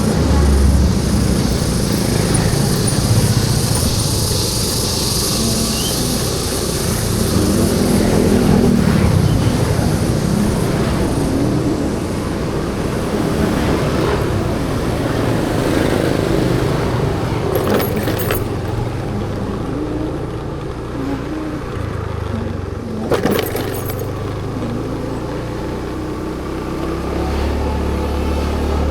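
Road traffic: motor vehicles running and passing with a continuous hum of engines and road noise that swells and fades. Two brief sharp clicks in the second half.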